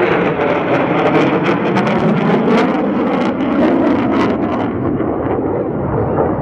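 F-16 fighter jet passing in afterburner: a loud, steady jet roar, with sharp crackling through the first four to five seconds that then dies away.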